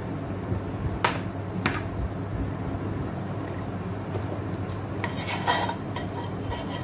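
A metal kitchen knife clacking twice against a plastic tray, then a brief scraping rattle of metal on plastic about five seconds in.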